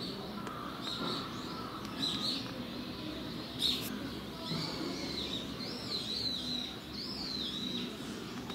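Small birds chirping, with a run of quick rising-and-falling calls from about four and a half to seven and a half seconds in, over a low steady murmur. One sharp click about halfway through.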